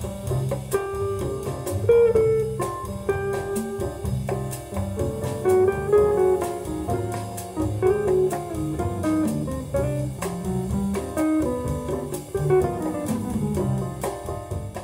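Instrumental music with a steady beat of drum strikes, stopping abruptly at the end.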